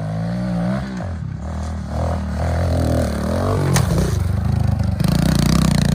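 Kawasaki KLX 110 dirt bike engine revving up and down as the bike is ridden, then held at high revs near the end. There is a single sharp knock about four seconds in.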